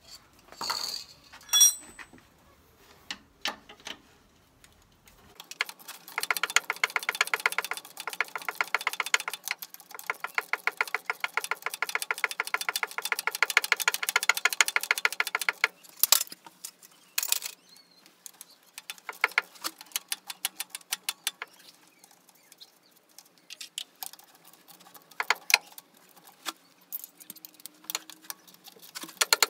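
Rapid, even clicking for about ten seconds, with scattered single clicks and knocks before and after, typical of a ratchet wrench being worked.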